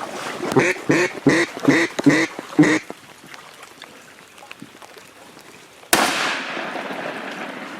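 A quick descending series of about six mallard hen quacks, then, a few seconds later, a single shotgun blast that fades away slowly.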